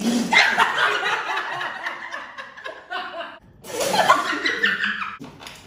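Several people laughing together, loud and choppy, with a short break about three and a half seconds in before the laughter picks up again.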